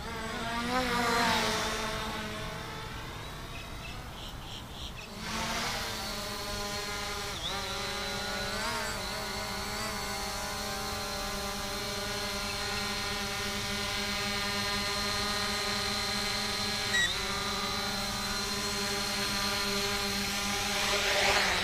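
SG-906 brushless quadcopter in flight: its four propellers give a steady buzzing whine made of several pitches at once. The pitch dips briefly a few times, and the whine grows louder near the end as the drone comes down onto the road close by.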